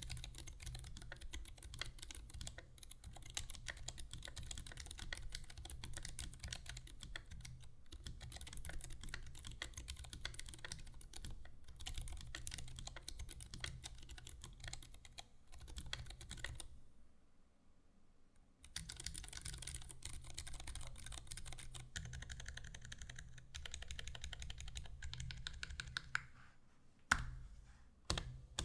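Typing on a Hansung TFG ART mechanical keyboard with lubed Zealios Zilent 67g silent tactile switches, GMK keycaps and Sorbothane dampening: a fast, steady run of keystrokes. It pauses for about two seconds just past the middle, and there are two louder single key strikes near the end.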